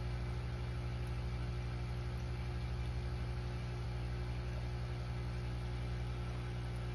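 Steady low motor hum with a fast buzzing flutter, from the aquarium's running equipment.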